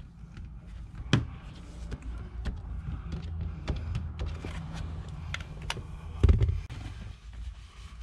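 Scattered clicks, taps and knocks of hands and hand tools working along a truck's rear window glass and rubber edge, over a low handling rumble, with a louder thump about a second in and another around six seconds.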